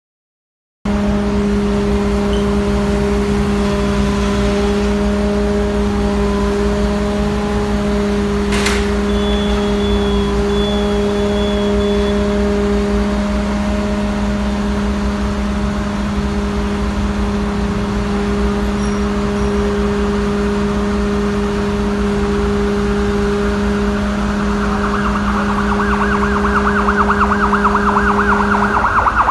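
Steady, loud machine drone of a fire-service Magirus aerial platform truck working, one unchanging hum with a low rumble under it, starting abruptly about a second in. A single sharp knock sounds about eight seconds in, and a higher rasping buzz builds up over the last few seconds.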